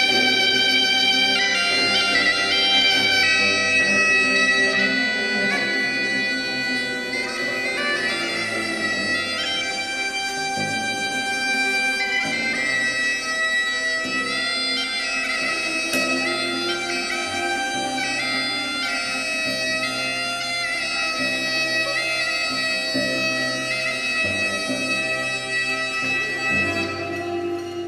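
Bagpipe playing long held, gliding notes over a steady low drone, somewhat softer after about seven seconds.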